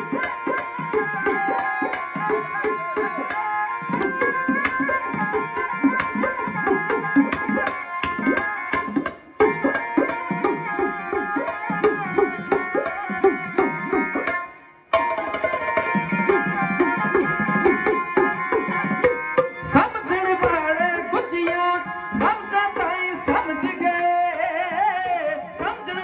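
Dhadi folk instrumental passage: two dhadd hourglass drums struck by hand in a quick, dense rhythm under a bowed sarangi's sustained melody. The playing breaks off for a moment twice, about nine and fifteen seconds in.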